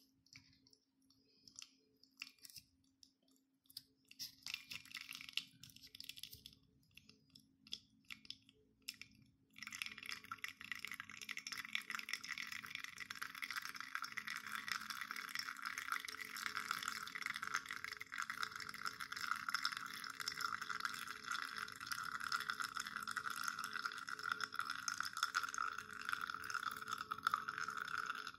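Espresso extracting from a Cafelat Robot manual lever machine's bottomless portafilter. At first there are only scattered faint ticks; then, about ten seconds in, a steady splashing hiss begins as the stream of espresso falls into the cup, and it carries on to the end.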